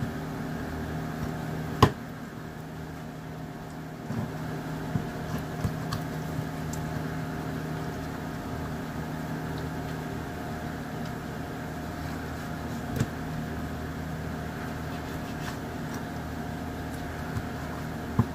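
Steady mechanical hum of kitchen equipment with several held tones. Over it, a kitchen knife works through softshell turtle meat on a cutting board, heard as one sharp knock about two seconds in and a few soft clicks later.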